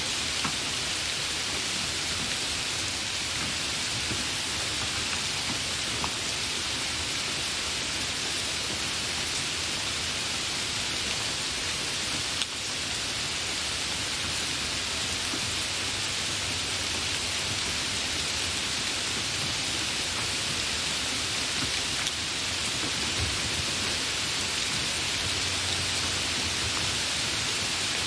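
Hard rain falling steadily: a dense, even hiss of drops with a few sharper drop hits now and then.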